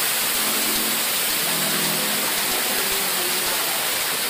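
An artificial waterfall pouring steadily over sculpted rock into a pool, making a constant rushing hiss of falling water.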